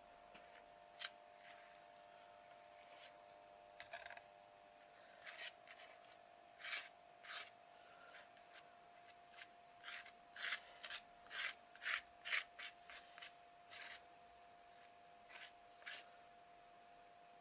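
Modelling paste being spread and scraped across a stencil on a canvas: a run of short scraping strokes, coming about two a second in the middle, over a faint steady hum.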